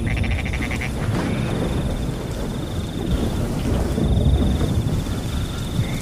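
Thunder rumbling over rain, with a cricket's high, steady trill that pauses once midway and a frog's quick rattling call in the first second.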